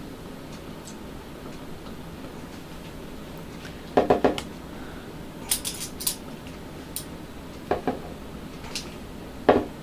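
Steel pliers and a screwdriver clicking and clinking against the brass fittings of a saddle-valve CO2 adapter as it is gripped and worked, in a scattered series of sharp metallic clicks starting about four seconds in. The loudest come about four seconds in and near the end.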